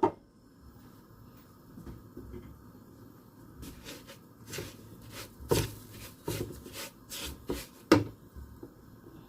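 Kitchen utensils and cookware knocking and clattering: a quiet stretch, then a string of sharp knocks over several seconds, the loudest near the end.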